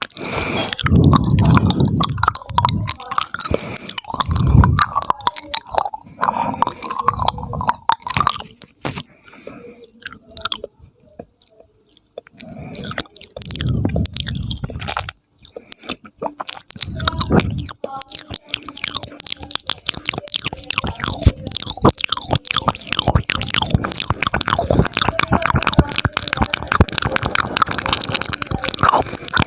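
Close-miked ASMR mouth sounds: wet clicking, smacking and popping of the lips and tongue. They thin out to a few quiet clicks about ten seconds in, then pick up into a dense run of fast, crackly clicks in the last third.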